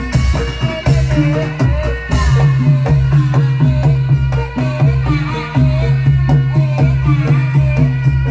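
Live Javanese folk ensemble music for a Dawangan dance: pitched struck notes repeat in a steady pattern over drums and a loud low held tone, with a wavering melody line above.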